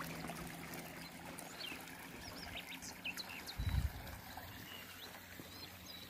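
Spring water pouring from a fountain's spouts into its stone trough, a faint steady splashing. A few short high bird chirps sound in the middle, and a brief low thud comes a little past halfway.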